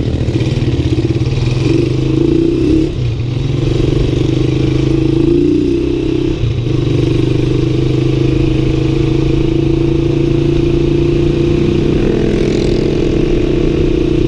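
Motorcycle-and-sidecar tricycle engine running steadily while riding along a road. Its note breaks briefly twice, about three and six and a half seconds in.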